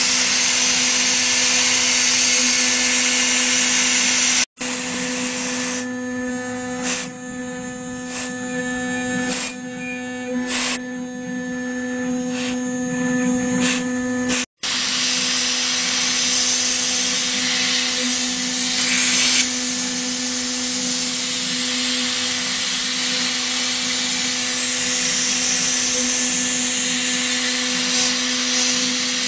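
Metal CNC router's spindle running with a steady whine as its engraving bit cuts a logo into a brass plate, over a constant hiss of cutting. Through the middle stretch the hiss thins and sharp ticks come through, and the sound cuts out briefly twice.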